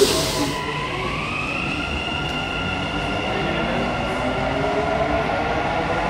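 Dubai Metro train pulling out of the station. A brief hiss cuts off about half a second in, then the electric drive's whine rises in pitch over about two seconds and holds steady as the train gets under way, over a steady low rumble.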